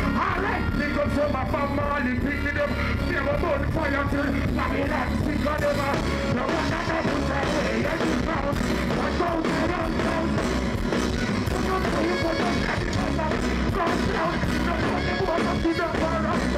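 Live reggae band playing with a strong steady bass line, a vocalist singing into a microphone over it.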